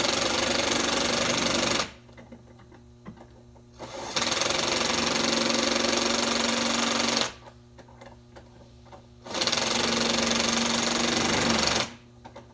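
Cordless impact driver run in three bursts of a few seconds each, rattling as it hammers down the nuts on wire rope clamps of a steel cable; he tightens them in turns because tightening one side releases the pressure on the clamp's saddle.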